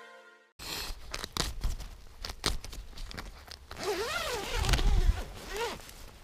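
Rustling and irregular clicks of fabric and gear being handled close to the microphone, zipper-like, with low handling rumble. A short wavering pitched sound rises and falls about four seconds in, and a smaller one follows near the end. The intro music fades out at the start.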